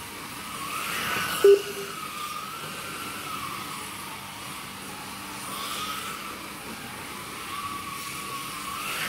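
Slot cars' small electric motors whining around the track, the pitch rising and falling as they speed up and slow down. A single short, loud beep sounds about a second and a half in.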